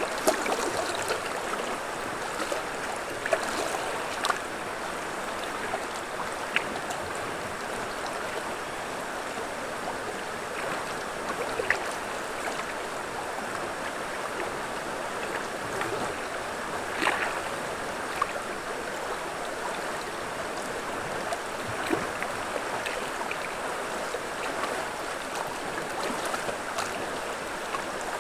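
River water flowing in a steady rush, with a few short sharp splashes or knocks scattered through it.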